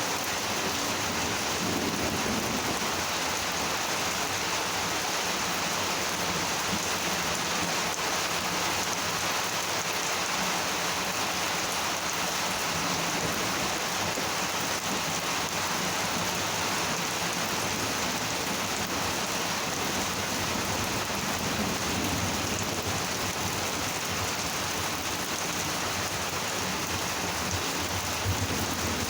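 Heavy, steady monsoon rain pouring down and pattering on surfaces, with low rumbles of distant thunder a few times, the last one near the end.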